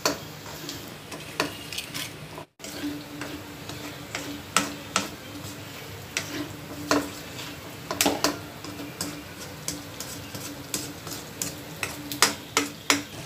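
Chicken pieces frying in oil in a metal kadhai with a steady sizzle, while a spatula stirs them, scraping and knocking irregularly against the pan.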